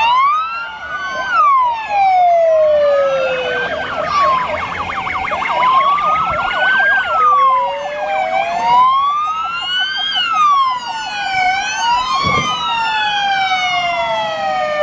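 Sirens of several fire service vehicles driving past one after another, overlapping: slow rising and falling wails mixed with fast yelping tones.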